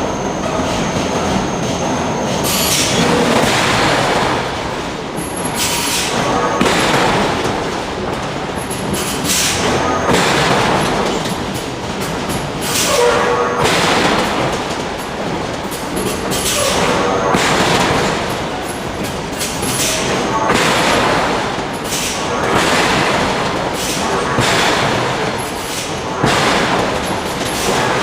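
Heavy hydraulic forging hammer striking hot steel at a slow, regular pace, about one blow every three seconds, over continuous loud industrial noise.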